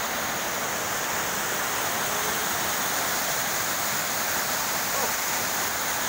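Waterfall cascading over rocks into a pool: a steady, even rush of falling water.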